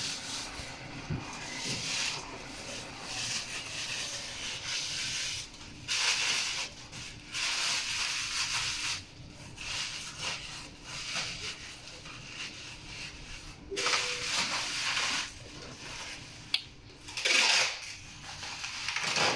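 HiYi Lab MX-T6-S tube roller mixer running, its rollers turning with a rubbing hiss that swells and fades irregularly.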